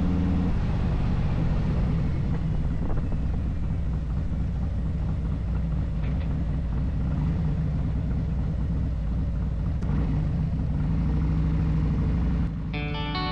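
Cruiser motorcycle engine running steadily at road speed, with a constant rush of wind and road noise. Near the end it cuts to electric guitar music.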